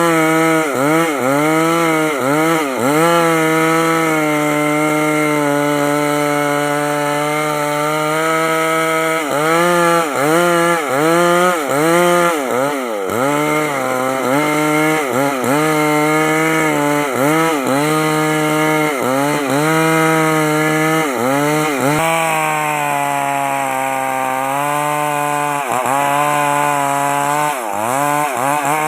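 A Stihl two-stroke chainsaw runs at high revs as it cuts into a log. Its pitch holds steady through long stretches of the cut and dips briefly and repeatedly at times, as the chain takes load or the throttle eases and recovers.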